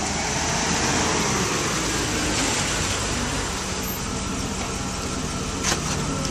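Chevrolet Avalanche pickup's engine running steadily as the truck pulls in and stops, with a short click near the end.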